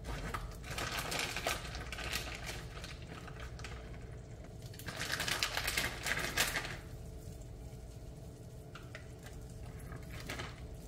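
Clear plastic bag crinkling as shredded chicken is pulled out of it by hand and dropped into a pan. It comes in two spells, the louder one about five to seven seconds in, then only a few faint rustles.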